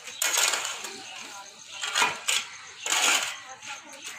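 A series of short, noisy scraping or clattering strokes, roughly one a second.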